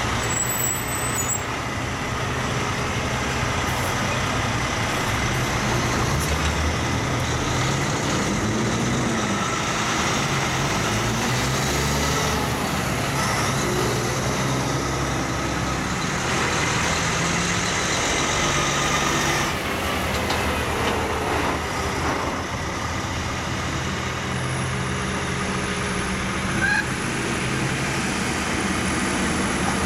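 A convoy of Kenworth trucks drives past one after another, their heavy diesel engines running with the pitch rising and falling as each truck goes by. A brief sharp sound comes a little before the end.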